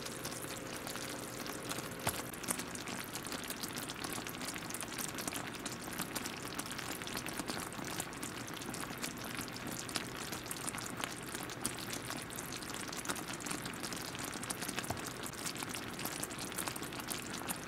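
Sugar and corn-syrup candy syrup at a full rolling boil in a saucepan, bubbling steadily with many fine crackles and pops as it climbs toward 250 °F, the hard-ball stage.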